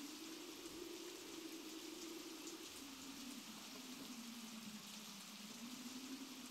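Faint steady hiss with a low, slightly wavering hum: quiet background noise.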